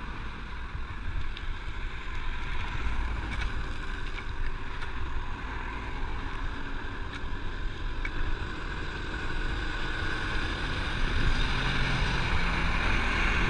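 Wind rushing over the microphone of a handlebar-mounted camera on a moving bicycle, with a steady low rumble of road noise, getting louder in the last few seconds.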